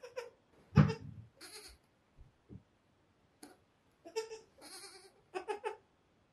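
Five-day-old goat kids bleating in several short cries, a few of them quick and close together near the end.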